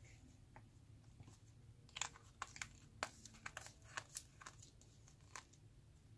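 Faint handling noises: a scattering of light clicks and crinkles as a paper wipe is set down and plastic gel tubes are handled in a plastic packaging tray, starting about two seconds in and stopping shortly before the end.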